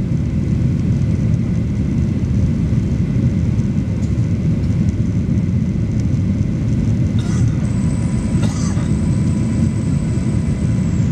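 Steady low roar of a Boeing 737-800's jet engines and the rushing air, heard from inside the cabin over the wing as the airliner climbs at takeoff power. Two brief rustles come about seven and eight and a half seconds in.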